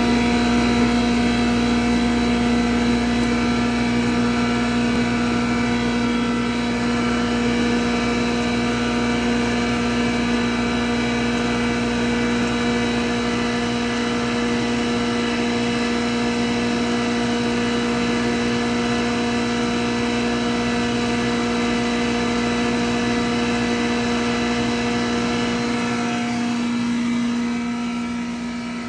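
Wheat straw (bhusa) grinder machine running under load as straw is fed into its hopper: a steady machine hum with one strong steady tone and higher overtones, easing slightly near the end.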